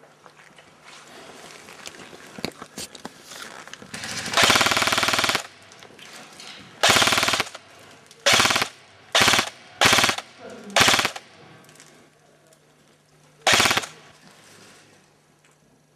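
Airsoft guns firing full-auto bursts of rapid shots: a longer burst of about a second, then six short bursts over the next ten seconds.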